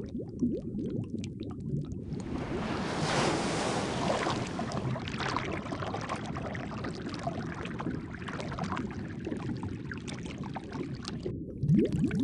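Underwater water ambience: low bubbling at first, then from about two seconds in a broad rushing wash of water with crackle that carries on until a short break near the end, after which the bubbling returns.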